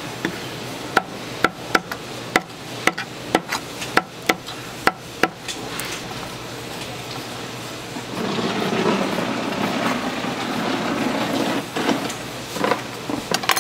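Knife chopping steamed sundae and pork offal on a wooden cutting board: about a dozen sharp knocks, roughly two a second, for the first five seconds. A louder, rougher noise takes over from about eight seconds in, with a few more knocks near the end.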